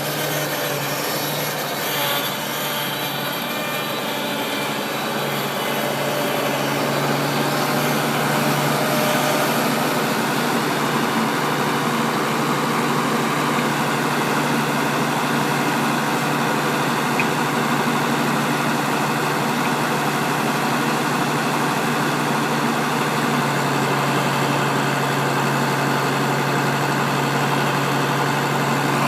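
New Holland TV-140 tractor's diesel engine running steadily, a little louder from about seven seconds in.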